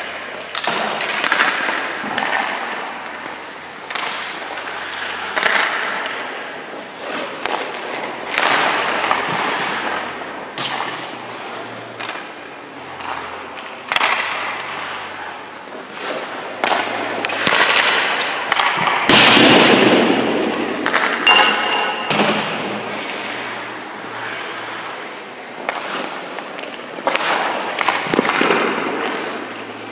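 Hockey goalie's skate blades scraping and carving the ice in repeated short pushes and stops every couple of seconds, with thuds as his leg pads drop onto the ice in the butterfly; the loudest scrape comes about two-thirds of the way through.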